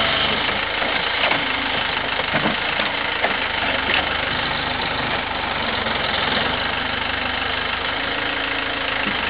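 Mini excavator's diesel engine running steadily while its bucket digs into turf and soil, with a few short knocks in the first few seconds.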